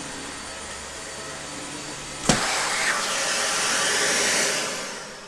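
Dyson upright vacuum cleaner running steadily. About two seconds in there is a sharp click, after which it runs louder and hissier, and then the motor winds down and fades near the end.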